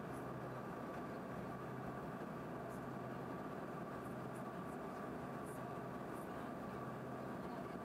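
Steady in-flight cabin noise inside an Embraer RJ145 regional jet: the rush of airflow and the drone of its rear-mounted turbofan engines, with a low hum and a thin steady whine over it.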